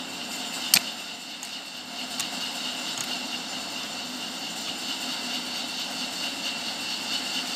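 Hand hoe chopping into stony soil, with one sharp clink about a second in and a few fainter knocks, over a steady background noise.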